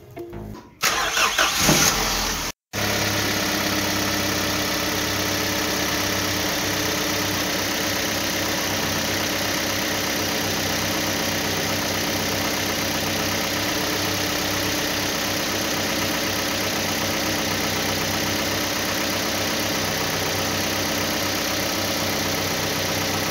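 A vehicle engine idling steadily, after a short starting sound and a brief dropout about two and a half seconds in.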